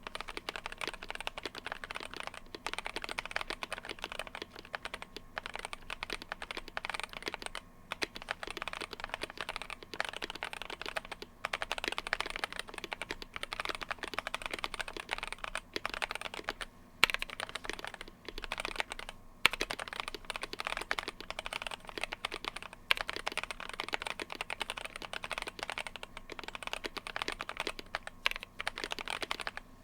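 Steady typing on a GMMK Pro mechanical keyboard with stock Boba LT switches, EPBT Samurai PBT keycaps on an FR4 plate, foam-dampened and with lubed stabilizers: a fast, continuous run of key clacks broken by a few short pauses, with a couple of noticeably louder key strikes past the midpoint.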